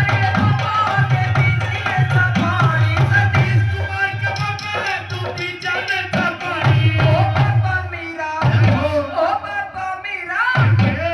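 Loud music played over a DJ sound system: a heavy, steady drum beat with a bending melodic line over it. The low beat drops out briefly around eight seconds in.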